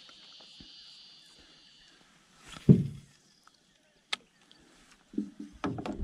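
Handling noise in a small aluminium boat: one loud, dull thump about halfway through, a sharp click a little later, and a few softer knocks near the end. A faint steady high-pitched buzz fades out in the first two seconds.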